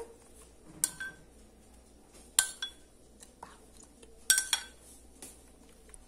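A metal spoon clinking against dishes about seven times, with quiet spells between, some clinks ringing briefly, as it scoops tomato sauce and spreads it over a baked pizza crust in a metal pan.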